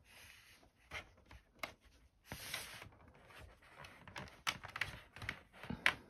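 Quiet scraping of a plastic pry card along the seam of a Lenovo IdeaPad 330's bottom case, with scattered clicks and snaps as the case's plastic clips come loose one by one.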